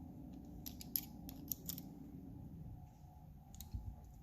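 Light metallic clicks and taps as driver bits are swapped in a small precision screwdriver, with a cluster of quick clicks a second or two in and a soft knock near the end.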